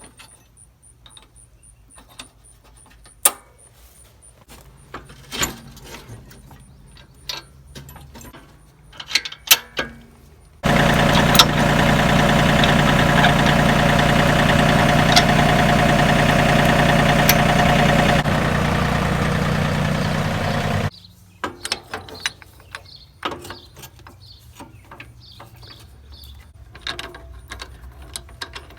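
Scattered metal clicks and knocks, then a loud, steady machine or motor running for about ten seconds, starting and stopping abruptly, then more clicks and knocks.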